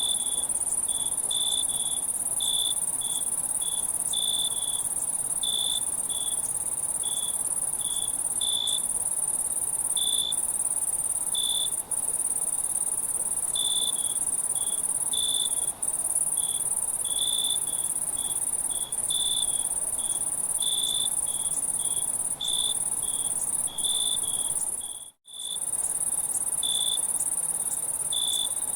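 Night chorus of crickets: a steady high-pitched trill with short, irregularly spaced chirps on a lower note over it. The sound cuts out for a moment late on, then resumes.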